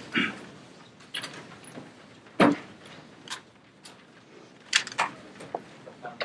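Folding lectern stand being carried and set down on the floor: a few scattered knocks and clatters, the loudest about two and a half seconds in.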